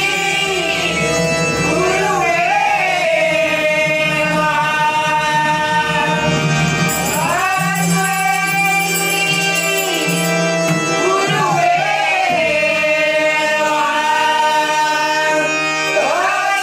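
Malvani devotional bhajan: a solo voice singing long, ornamented phrases over a steady held instrumental drone, with tabla accompaniment.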